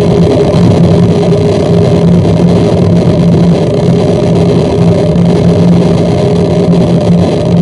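Harsh noise music: a loud, unbroken wall of distorted electronic noise with a steady low drone running through it.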